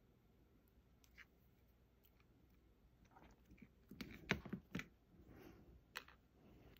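Quiet clicks and handling noise of fingers bending and fitting a small thin metal model part, with a cluster of sharper clicks about four to five seconds in and one more near six seconds.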